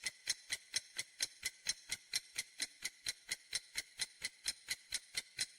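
Clock-style ticking sound effect, even and quick at about four ticks a second: a quiz countdown timer running while the viewer picks an answer.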